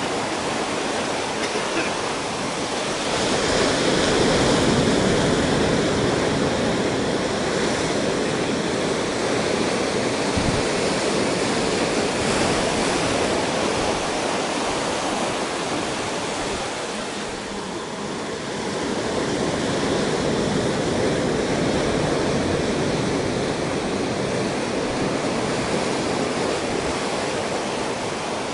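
Ocean surf washing in over rocks and sand: a steady rush of breaking and receding water. It swells a few seconds in and eases briefly about two-thirds of the way through.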